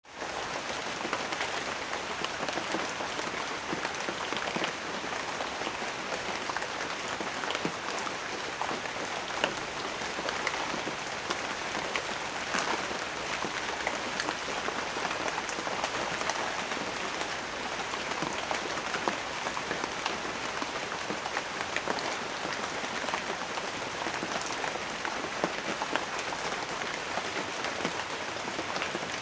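Steady rain falling on a surface, an even patter of many drops with scattered louder individual drop ticks.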